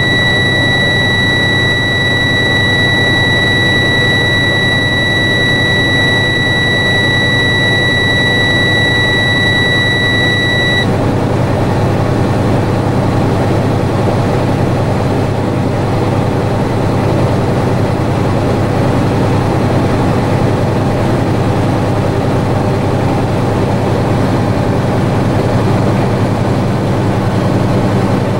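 Tractor-trailer diesel engine running steadily, held above idle at over 1200 RPM to build air pressure. A steady high-pitched low-air-pressure warning buzzer sounds over it and cuts off suddenly about eleven seconds in, as the air pressure climbs past the warning point.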